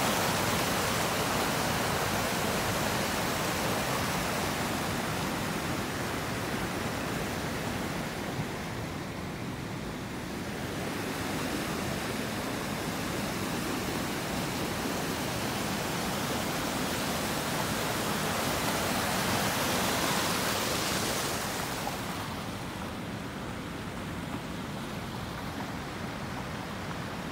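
Small waterfall of rainwater gushing over a pond outlet, swollen after a heavy downpour: a steady rushing of water that eases slightly about eight seconds in, swells again towards twenty seconds, and drops a little after about twenty-two seconds.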